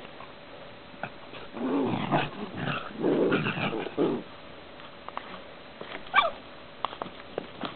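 Dogs growling in a run of low growls for about two and a half seconds, then a single short, high yelp about six seconds in.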